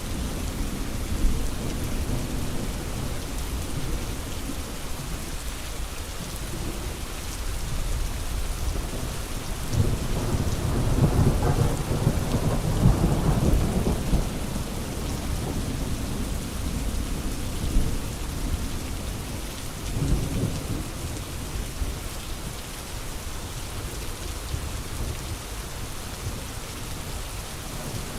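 Steady heavy rain falling. A low rumble swells up about ten seconds in and lasts a few seconds, with a shorter one later.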